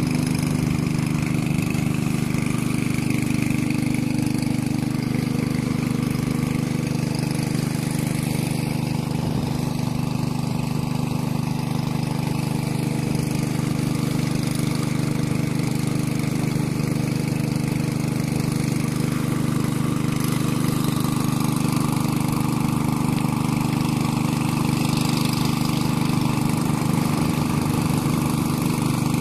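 A small engine running steadily at one constant speed, driving a water pump.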